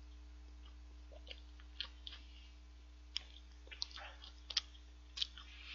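Faint, irregular wet clicks and smacks of a mouth chewing a soft choux cream bun, over a steady low hum.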